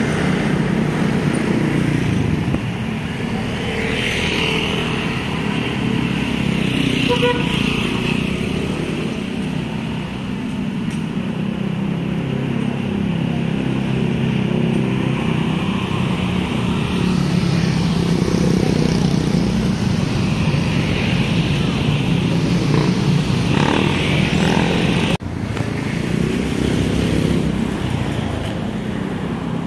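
Road traffic passing close by, cars and motorcycles: a steady engine hum with tyre hiss that swells and fades as vehicles go by.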